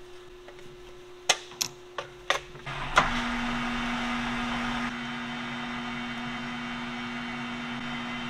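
A few sharp metal clinks as a center drill is fitted into a drill chuck, then about three seconds in a metal lathe starts and runs with a steady hum. The center drill is fed into the end of the spinning pin.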